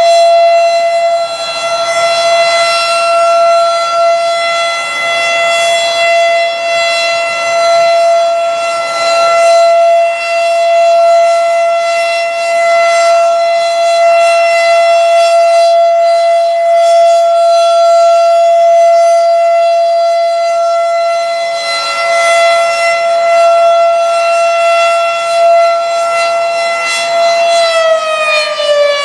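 Federal Signal RSH-10 rotating outdoor warning siren sounding one steady, loud tone, swelling and fading in loudness as the horn turns. Near the end its pitch starts falling as the siren begins to wind down.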